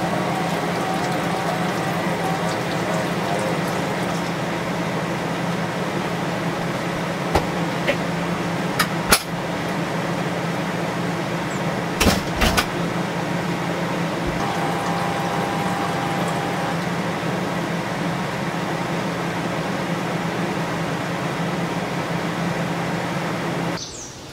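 A steady mechanical hum from a running motor, with a few sharp clicks and knocks in the middle; it cuts off suddenly near the end.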